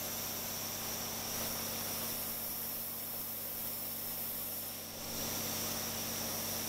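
Plank toy oscillating engine running fast: a steady hiss with a quick, even beat underneath, dipping briefly about five seconds in.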